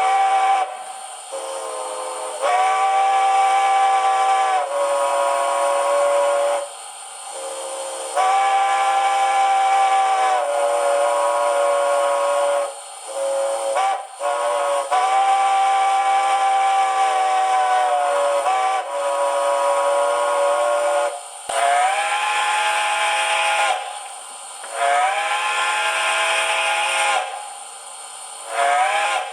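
Recorded steam-locomotive chime whistle played by a TCS WOW Sound decoder through a model locomotive's speaker: a series of long and short blasts, several notes sounding together, some sliding up in pitch as they open. A steady steam hiss runs under and between the blasts.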